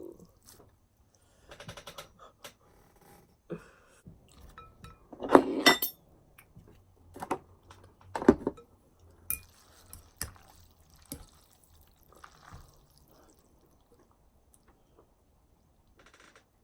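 Close-up eating of noodles: utensils clinking against a dish, mixed with wet mouth sounds. It comes as irregular clicks, with two louder bursts about five and eight seconds in.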